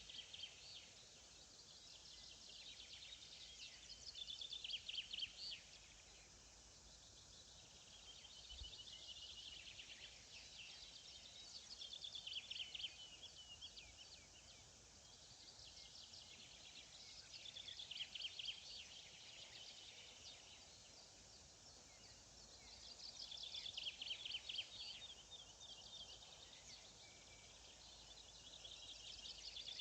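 A songbird repeating a short, fast trilled song phrase about every five seconds, each phrase lasting a second or two, over a faint steady hiss of open-air ambience.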